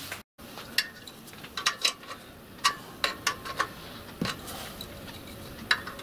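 Light metallic clicks and clinks, about a dozen at irregular intervals, as small blanking plugs and a tool are handled and fitted into the bushes of a model steam locomotive boiler.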